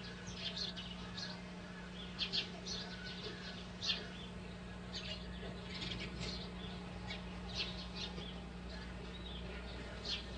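Birds chirping: short, scattered calls of varying pitch, over a steady low hum.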